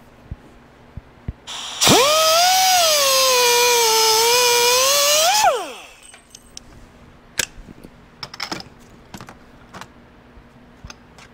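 Pneumatic cut-off tool starting with a hiss of air and a fast-rising whine that sags in pitch as it bears into a strip of C1095 spring steel, then picks up again and winds down after about three and a half seconds. Light clicks and taps of handling the tool and metal come before and after.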